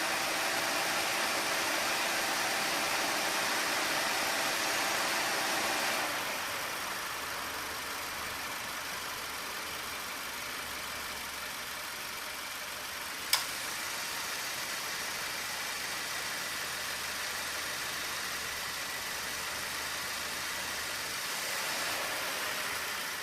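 2018 Subaru Forester idling with the air conditioning on: the A/C compressor runs with a steady hum, cuts out about six seconds in, and seems to kick back in near the end, cycling as the system holds temperature. With the compressor off, the engine's idle and fan noise are left, and a single sharp click comes about halfway through. The compressor, moderately worn, runs without abnormal noise after treatment.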